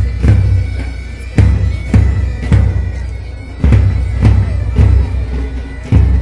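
Pipe band playing a march: bagpipes sounding a held drone and tune over loud, regular bass drum beats, with side drums.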